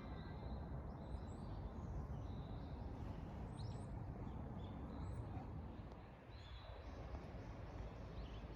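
Outdoor ambience after a loudspeaker chime: the last echo of the chime fades out in the first moment, then small birds give short high chirps again and again over a steady low background rumble.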